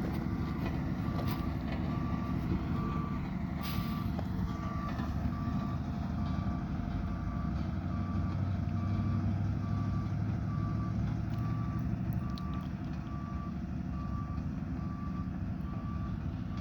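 Road roller's reversing alarm beeping at a steady rate, a little faster than once a second, over the low rumble of its diesel engine; the beeping stops near the end.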